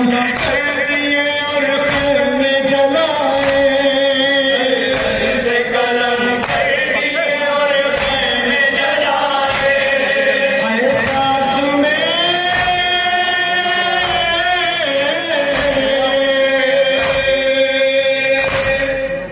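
Several men chanting a noha, an Urdu mourning lament, together into a microphone in long held, sliding notes. Under the chant, the mourners beat their chests in a steady rhythm of about one slap a second.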